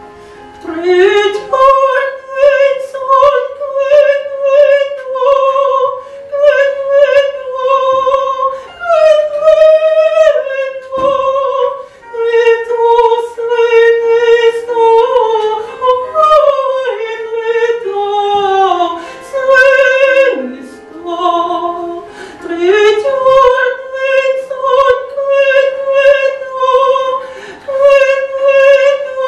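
Countertenor singing a slow lyrical song in the high male register, holding long notes with vibrato. The phrases break briefly about a third of the way in and again about two-thirds through.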